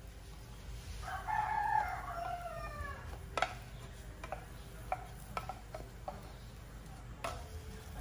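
A rooster crows once, about a second in, a call of about two seconds that falls in pitch at the end. After it come several sharp knocks, about seven spread over four seconds, as a wooden spatula turns a pancake in a non-stick frying pan.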